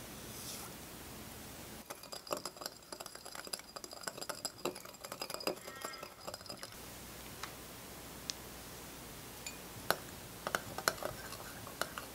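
Small metal wire whisk stirring sugar water in a glass bowl, its tines clinking rapidly against the glass for several seconds. A few separate clinks follow later as the whisk works matcha into the syrup.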